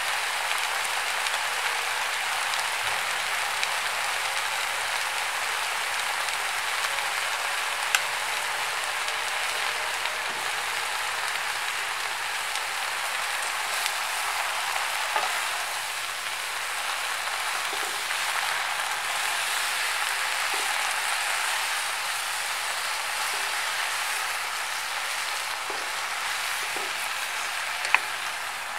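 Pumpkin shoots and leaves sizzling in a hot wok as they are stir-fried. The sizzle is steady, broken by a few sharp clicks of the wooden spatulas against the pan.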